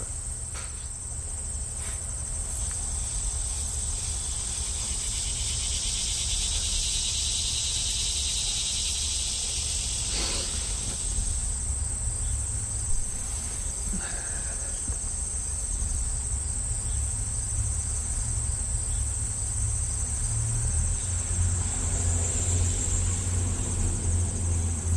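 Steady high-pitched insect chorus over a low rumble, with one short knock about halfway through.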